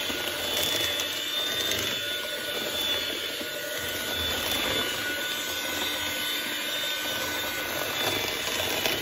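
Electric hand mixer running steadily, its beaters creaming butter and sugar in a plastic bowl: a continuous whir with a thin high whine in it.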